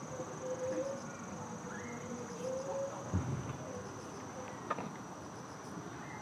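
Insects trilling: a steady high-pitched pulsing drone, with a faint wavering lower tone under it. A single dull thump sounds about three seconds in, and a short click shortly before five seconds.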